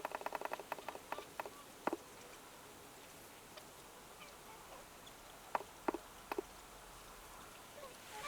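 Snow geese calling in short nasal notes: a quick run of notes in the first second and a half, a single note at about two seconds, then three short calls around six seconds.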